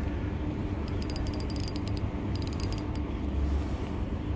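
Spinning reel being cranked under load against a hooked fish, the gears whirring, with two short runs of rapid ratcheting clicks about a second and about two and a half seconds in.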